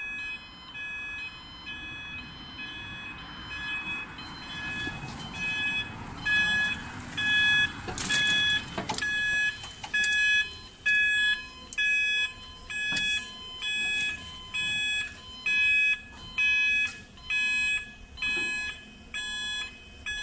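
Level crossing audible warning alarm sounding in even electronic pulses, about three every two seconds, growing louder partway through. A few sharp knocks come about eight to nine seconds in.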